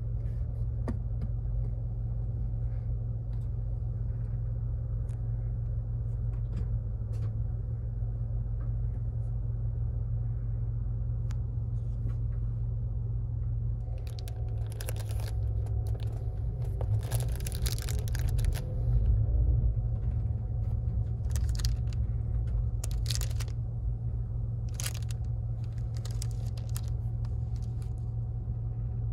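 Steady low rumble of an overnight highway bus in motion, heard from inside a passenger compartment. From about halfway through, plastic packets (a wet-tissue pack and eye-mask sachets) crinkle and rustle in short bursts as they are handled.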